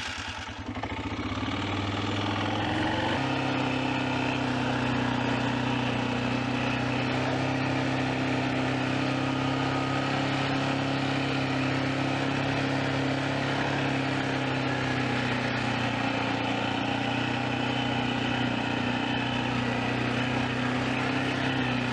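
Tractor engine running steadily under load, the engine speed stepping up about three seconds in and then holding even.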